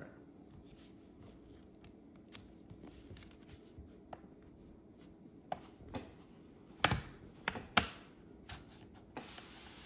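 Quiet scraping and tapping of a plastic pry pick along the seam of a 2024 ROG Zephyrus G14's bottom cover, with several sharp clicks, the loudest two about seven and eight seconds in, as the cover's retaining clips pop loose.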